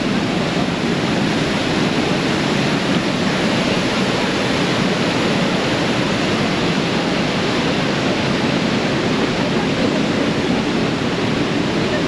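Manavgat Waterfall's wide, low cascade and the white-water river below it: a steady, loud rush of falling water.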